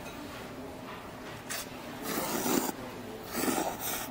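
A person slurping thin wheat noodles in quick bursts, a short one about one and a half seconds in and two longer, louder slurps around halfway and near the end.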